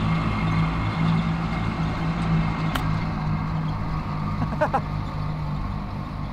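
A tractor engine running steadily, a constant low drone throughout. About three seconds in comes a single sharp click: an iron striking the golf ball on a chip shot.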